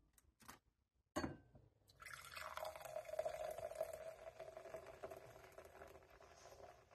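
Beer from an aluminium can poured into a stemmed glass. About a second in there is a sharp snap and a short hiss as the can is opened. Then comes a steady pour, the beer splashing and fizzing into the glass as it foams, easing off near the end.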